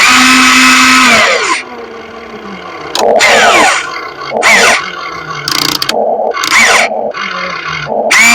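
RC excavator's motor and hydraulic pump whining in repeated loud bursts as the controls are worked, the pitch sagging and bending as the machine takes load.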